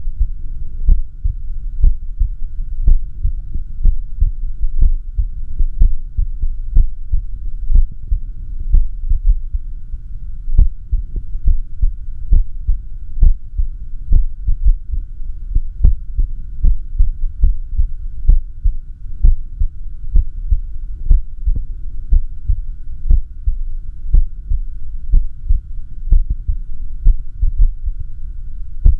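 Heartbeat sounds of a heart in arrhythmia, picked up by an echocardiography machine: short low thumps at uneven spacing, about one to two a second. A steady low hum runs underneath.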